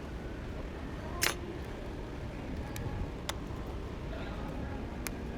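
A few sharp, separate clicks, about two seconds apart, over a steady low hum.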